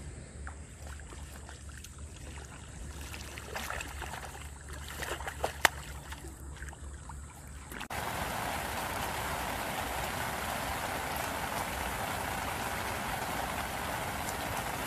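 Rain falling on a pond's surface, a steady even hiss that starts abruptly about halfway through. Before it, a quieter background with a low steady hum and a few sharp clicks.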